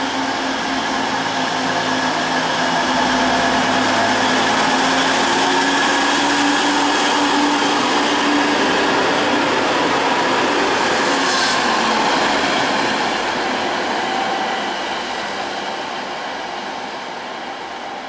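DB Class 612 diesel multiple unit departing under power, its diesel engines pulling with a low note that climbs slightly as it accelerates past, then fading steadily as the train draws away.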